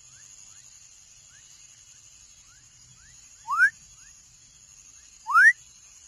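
Young frog calling: two short, loud whistled calls that rise in pitch, about two seconds apart, over many fainter, shorter rising chirps.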